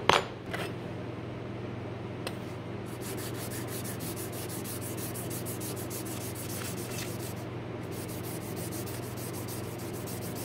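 A steel cabinet scraper, held edge-down in a wooden guide block, being rubbed back and forth on a 1000-grit whetstone to hone away file marks: a steady gritty scrubbing in quick, even strokes, with a short break about three quarters of the way through. It opens with a single sharp knock, the loudest sound.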